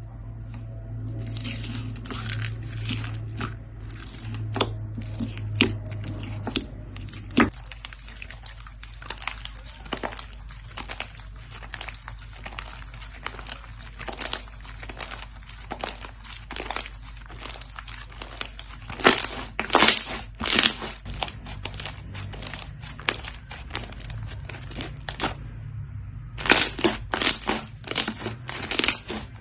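Slime being squeezed and pressed by hand, giving a run of crackles and pops, about two a second through the middle, with louder bunches of crackling near the end.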